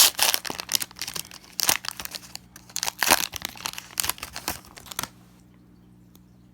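Foil Pokémon card booster pack wrapper being torn open and crinkled by hand: a run of sharp crackles that stops about five seconds in.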